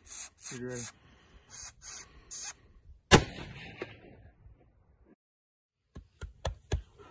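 A single high-powered 7mm Magnum rifle shot about three seconds in: a sharp crack that echoes and dies away over a couple of seconds. About three seconds later come four quick sharp clicks, and soft rhythmic rubbing is heard before the shot.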